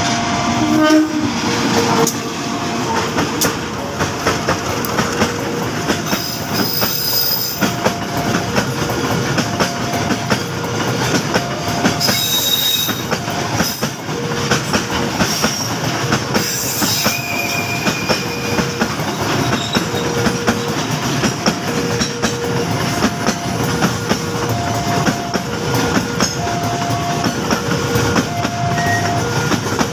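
A freight train of ballast hopper wagons clattering and rumbling past on the rails, its wheels knocking over the rail joints, after the CC 201 diesel-electric locomotive goes by about a second in. A two-tone electronic warning signal keeps alternating in the background.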